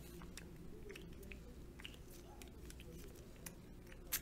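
Faint handling noises from a small hand-sanitizer spray bottle: soft rustling and scattered small clicks, with one sharper click near the end.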